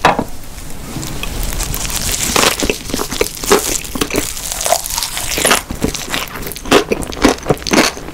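ASMR eating sounds: a piece of gimbap (seaweed rice roll) is dipped into tteokbokki sauce, then bitten and chewed, with many short clicks from the chewing.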